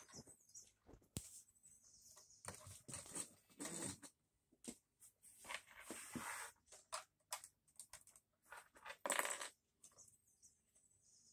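Faint, scattered clicks and rustling of Lego bricks and minifigures being handled and set into a Lego airliner, with a louder rustle about nine seconds in.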